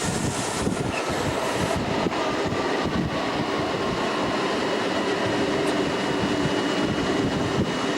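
Special train of FS 'Centoporte' coaches in motion: a steady running rumble with a few faint steady tones and occasional brief knocks.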